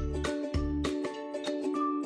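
Background music: plucked string notes in a light, even rhythm over a low bass line.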